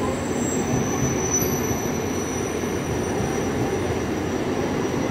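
Mumbai suburban electric local train running past close by: a steady, loud rumble of wheels on rails, with a faint high steady whine above it.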